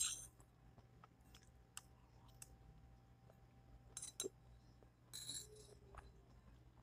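Near silence with faint scattered clicks and a brief rustle a little past five seconds in: the small sounds of hands picking roast beef off aluminium foil and of eating by hand.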